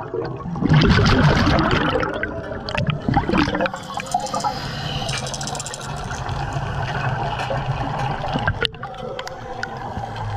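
Water bubbling and gurgling, louder for the first few seconds and then settling to a steadier wash, with scattered small clicks.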